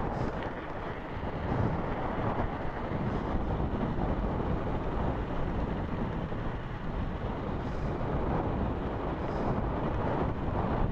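Steady wind noise buffeting the microphone, an even rushing rumble heaviest in the low end.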